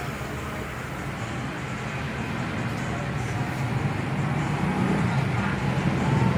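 Steady low rumble of a running vehicle engine, growing gradually louder.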